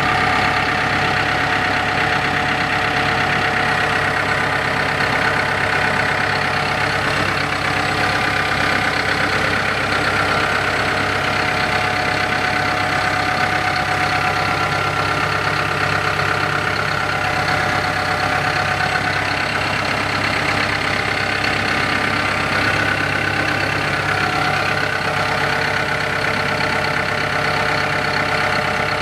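Diesel engine of a Hyundai Robex R140LC-9 crawler excavator running steadily at a constant speed.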